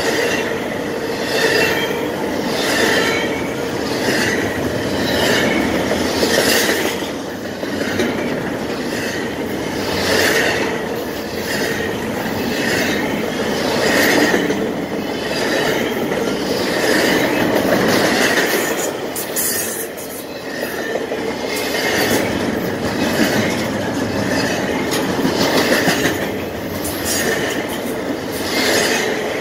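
Double-stack intermodal freight train rolling past close by: a steady rumble of steel wheels on the rails, with a rhythmic clatter of the car trucks over the rail joints about every one and a half seconds and a recurring wheel squeal.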